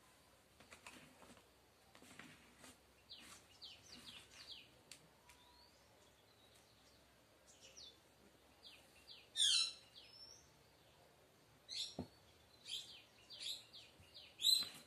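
Birds chirping in the background: scattered short high chirps, a louder call sweeping down in pitch about nine and a half seconds in, and a quick run of chirps near the end. A soft knock sounds about twelve seconds in.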